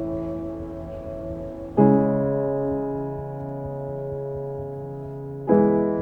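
Background piano music of slow held chords. A new chord is struck about two seconds in and another near the end, each ringing on and fading away.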